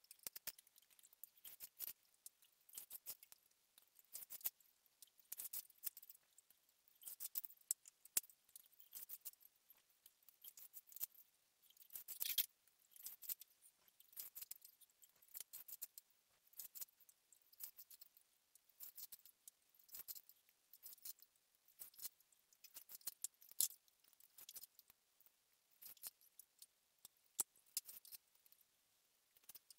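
Faint, irregular scratching and crackling of fine 2.5 mm chair cane strands as they are threaded and pulled through the woven seat, with many small clicks.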